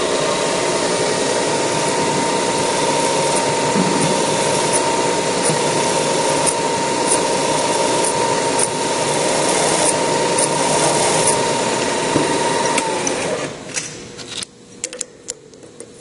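Drilling machine's spindle running with a twist drill peck-drilling a metal plate: a steady whine over cutting noise, with light ticks roughly once a second as the drill is pulled up to clear chips. About thirteen seconds in, the machine winds down, leaving a few scattered clicks.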